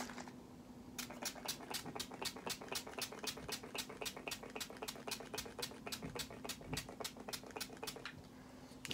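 Rose water in a pump spray bottle spritzed in quick, even strokes, about five a second, for about seven seconds as she mists her face. Each stroke is a short hiss of spray.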